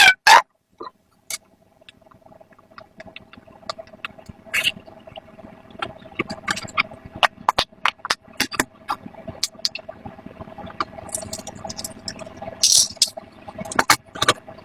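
Silicone pop-it fidget toys having their bubbles pressed one after another in quick succession: a run of irregular clicking pops, several a second.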